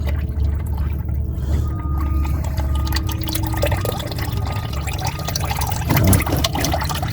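Engine oil mixed with water pouring from an oil pan's drain hole into a drain pan, a steady stream with some dripping, over a steady low hum. It is the last of the oil from an engine that seized, and the mechanic bets there wasn't a quart of oil in it.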